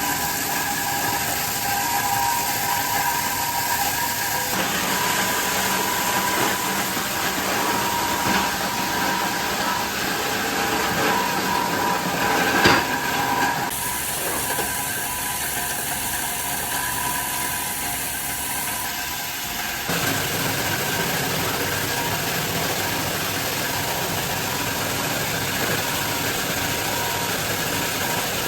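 Industrial machinery running with a steady mechanical noise and a few steady hums, changing abruptly several times as the scene cuts, with one sharp knock about halfway through.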